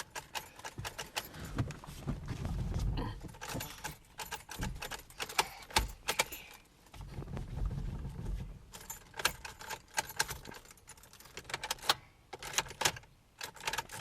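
Keys jangling on their ring, with many small clicks, as the ignition key of a 2014 Honda Pilot is worked. There are two stretches of low rumble, about two seconds in and again near the middle. The car won't start and acts as though the battery is dead, though the owner says the battery isn't.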